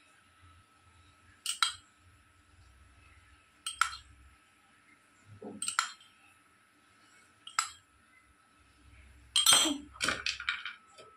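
Spoon clinking against a cooking pot of rice as food colour is poured in and mixed: a sharp clink about every two seconds, then a quick run of louder clinks and knocks near the end.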